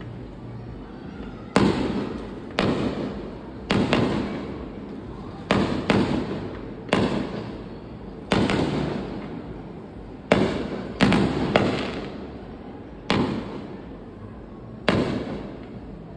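Aerial fireworks bursting: about a dozen sharp bangs at irregular intervals, each trailing off in an echo that lasts a second or so.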